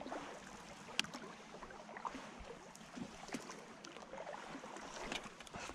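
A canoe being paddled across calm water: soft splashes and drips from the paddle strokes, with a sharp click about a second in.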